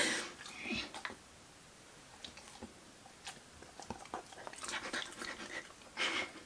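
Dog taking pieces of a chicken-fillet treat from a hand and chewing them: faint scattered clicks and smacks, busier about five to six seconds in.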